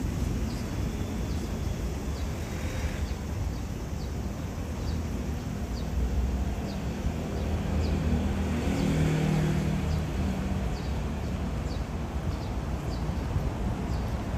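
City street traffic: a steady low rumble, with a vehicle engine passing about eight to ten seconds in. Light, regular ticks keep time, typical of the walker's footsteps.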